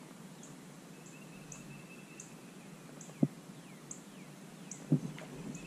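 Quiet open-air ambience: a short high chirp repeating about every three quarters of a second, a few faint whistled and falling notes, and two dull knocks about three and five seconds in.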